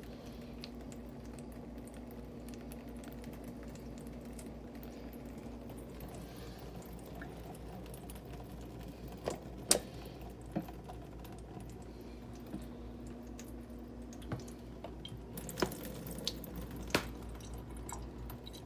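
Drip coffee maker running: a steady hum with scattered drips and sharp clicks, the loudest a few near the middle and several more near the end.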